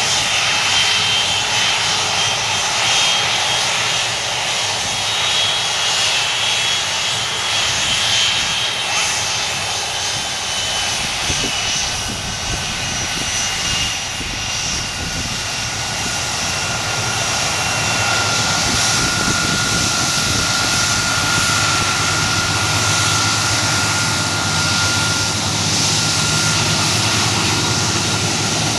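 Boeing 747-400's four Rolls-Royce RB211 turbofans at taxi power: a steady jet whine and roar. Thin high tones slowly drop in pitch, and a deeper rumble builds through the second half as the aircraft comes closer.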